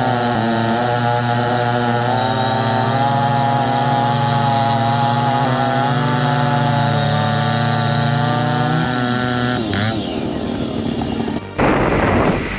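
Large two-stroke chainsaw running at a steady high speed for most of the stretch, its pitch wavering slightly, then dropping and shifting near the end. An abrupt change to a harsher, noisier sound follows shortly before the end.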